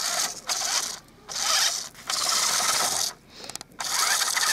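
Toy radio-controlled monster truck's electric motor and gears whirring in short on-off bursts as the throttle is pulsed. The wheels spin at the water's edge without getting the truck moving.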